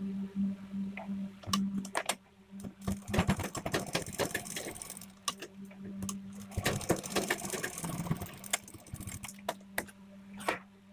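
Domestic sewing machine stitching fabric in two runs, its needle working in rapid clattering ticks. Near the end comes a couple of sharp snips of scissors cutting cloth.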